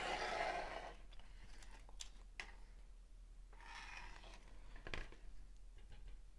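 Faint handling of LEGO Technic plastic pieces: soft rustling twice, with a few light clicks between.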